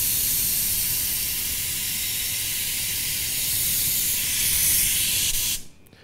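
Steam hissing steadily out of the steam wand of a Bezzera Woody DE espresso machine while the wand lever is open. It cuts off suddenly near the end.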